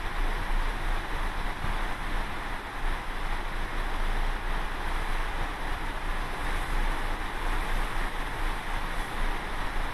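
Steady rush of open-ocean water and wind, with a heavy low rumble of wind buffeting the microphone.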